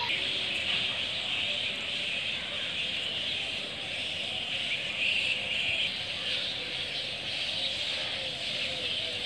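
Steady outdoor background din, dense and high-pitched, with a weaker low hum beneath and no distinct events.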